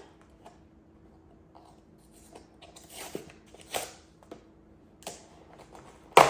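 Packaging of a camera accessory being handled and opened: scattered rustles and crinkles, then a sharp loud snap near the end.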